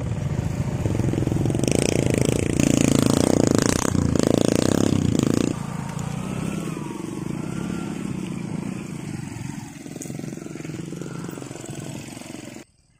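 Small motorcycle engine revving hard under load while crossing deep peat mud, loudest from about two to five seconds in, then running more steadily. The sound cuts off suddenly near the end.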